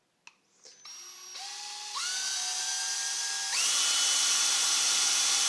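Power drill with a twist bit drilling a hole through a thin plastic food container. The motor whine starts about a second in and steps up in speed three times.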